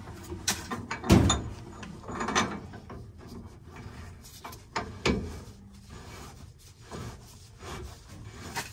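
Threaded black steel pipe fittings being worked into place on steam return piping: irregular metal scraping and clunks, the loudest about a second in and again about five seconds in.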